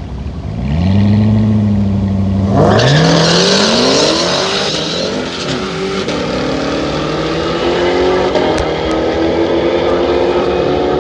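Two supercharged V8 drag cars, a C7 Corvette ZR1 and a Dodge Demon, rev up and hold their revs at the starting line, then launch hard about two and a half seconds in. They pull through the gears, with the engine note rising, dropping at each upshift and rising again as they run down the quarter mile.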